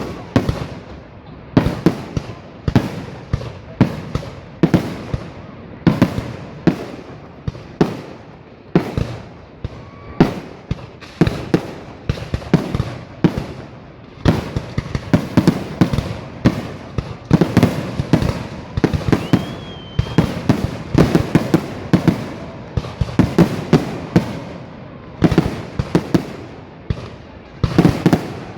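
Fireworks going off in quick succession: a dense, irregular run of sharp bangs, often several a second, with a brief whistle about two-thirds of the way through.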